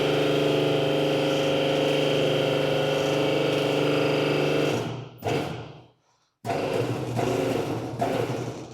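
Electric drive of a homemade cold-forging machine running with a steady hum as it bends a profile steel tube around a scroll template. It stops about five seconds in and starts again about a second and a half later.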